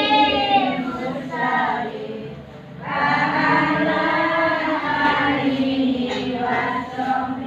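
A group of voices singing a slow chant together in long, held, winding notes. The singing fades about two seconds in and swells back a second later.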